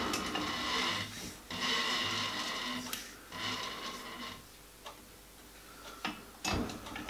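Metal lathe with a four-jaw chuck coasting to a stop after a facing cut, its running sound pulsing once a turn and fading as the spindle slows. A couple of sharp knocks follow near the end.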